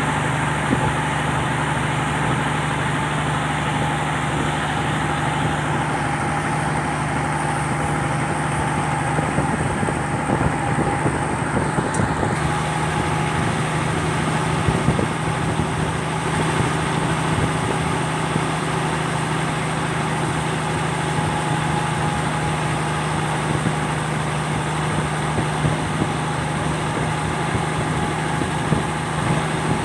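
Turbocharged truck engine fitted to a boat, running steadily at an even pitch.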